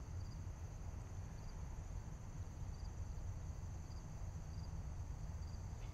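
Outdoor ambience of insects trilling steadily in a high pitch, with a short chirp about once a second, over a steady low rumble.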